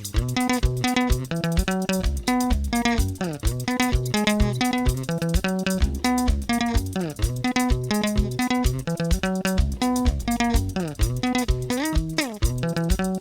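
Sungura music: rapid, interlocking picked electric guitar lines with sliding notes over a busy bass guitar line and drums.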